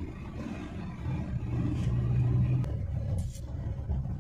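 A car heard from inside its cabin while driving: engine and road noise make a steady low hum.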